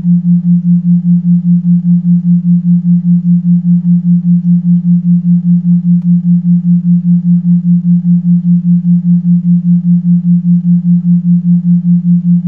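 A low pure tone pulsing evenly about four times a second, an isochronic-style tone of the kind that carries subliminal affirmation audio, with a much fainter sound repeating beneath it.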